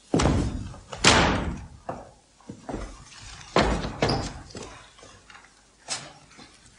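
Pistol shots fired on a theatre stage: two loud, sharp bangs about a second apart ring out in the hall, followed by several further bangs and knocks, two of them nearly as loud about halfway through.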